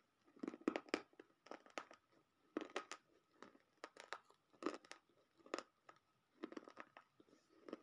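Close-up mouth sounds of dry roasted clay (multani mitti) being crunched and chewed with the mouth closed. The gritty crunches come in short clusters about once a second.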